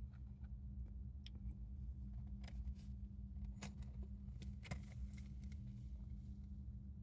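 Faint, irregular small clicks and scratches from a pet hamster, over a steady low hum.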